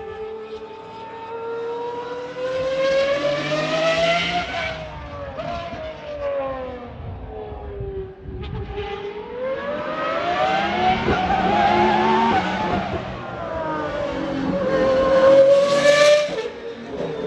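Pagani Huayra R's naturally aspirated V12 accelerating hard, its note climbing in pitch three times and falling away between climbs. The last climb is the loudest and highest and cuts off suddenly near the end.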